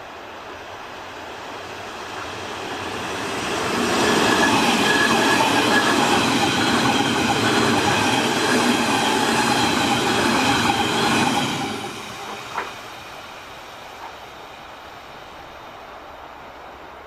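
Berlin S-Bahn class 481/482 electric multiple unit approaching and passing close by: a swelling rush of wheels on rails, loud for about eight seconds with a steady high whine over it, then falling away quickly. A single sharp click follows just after it passes.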